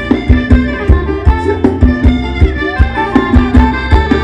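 Live Thai ramwong dance band playing an instrumental passage: a fast, even drum beat with heavy bass under a sustained melody line.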